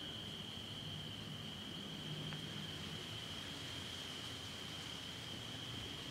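Night insects, crickets or katydids, calling in a steady, unbroken high-pitched chorus.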